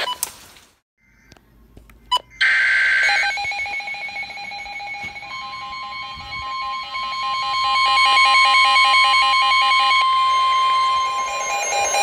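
Weather radio emergency alert starting: a couple of clicks, a short burst of digital data screech, then rapid pulsing alarm beeps. About five seconds in, a long steady warning tone joins the beeps.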